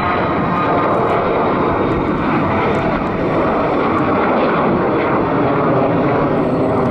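Twin-engine business jet's turbofans at takeoff power as it lifts off and climbs away: a loud, steady rushing noise.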